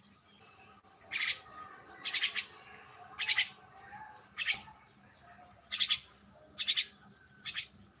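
Myna giving harsh, raspy call notes, about one a second, seven in all, over faint softer chirping.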